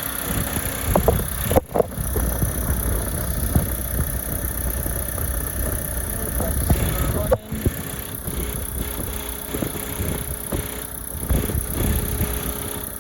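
Car engine idling with a steady low rumble, dropping out briefly twice, about one and a half and seven and a half seconds in.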